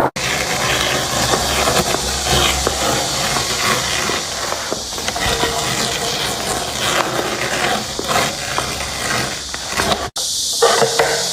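Steady hissing noise from metal machining, with no clear rhythm. It cuts off abruptly about ten seconds in, and a different machining noise follows.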